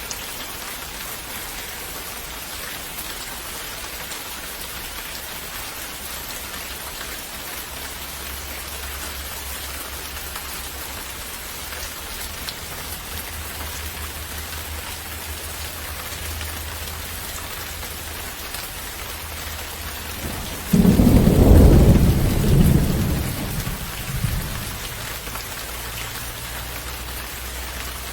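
Steady rain falling with an even hiss. About three-quarters of the way through, a loud clap of thunder breaks in and rolls off over a few seconds.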